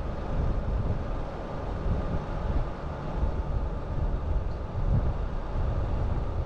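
Van driving along a paved road: a steady low rumble of tyres, engine and wind with no change in pace.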